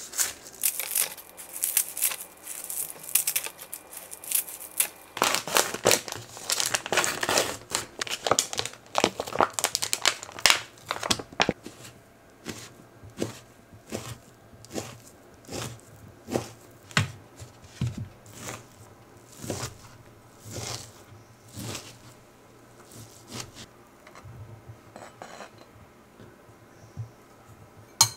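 Kitchen scissors snipping through crisp sheets of Korean seasoned seaweed, with dense crinkling and crackling. Then a knife cuts raw ham on a cutting board in separate sharp strokes, about one a second.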